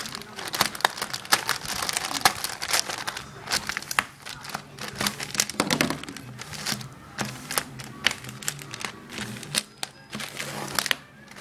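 Courier package packaging being torn open and handled, crinkling and crackling with many irregular sharp snaps and rustles.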